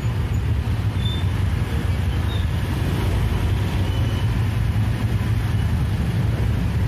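Low, steady rumble of slow-moving vehicle engines: the sound-system truck and motorcycles creeping along at walking pace.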